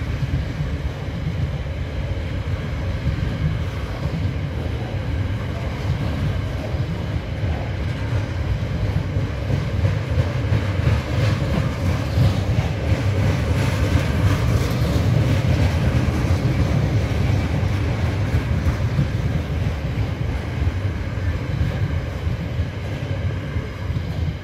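Open box wagons of a freight train rolling past: a steady rumble of steel wheels on rail with rhythmic clacks, loudest about halfway through and easing a little as the last wagon goes by near the end.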